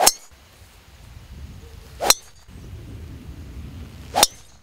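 Three golf tee shots about two seconds apart, each a sharp metallic ping of a driver's head striking the ball, with a brief high ring.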